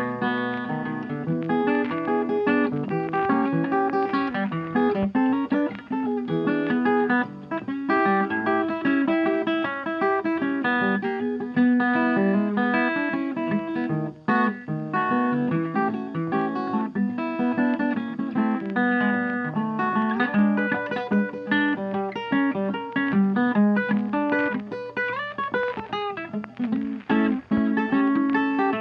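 Background music: guitar blues played throughout.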